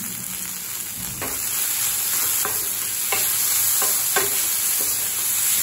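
Chopped vegetables sizzling in oil in a stainless steel frying pan while a spatula stirs them. The spatula knocks and scrapes against the pan about once every half second to second, starting about a second in.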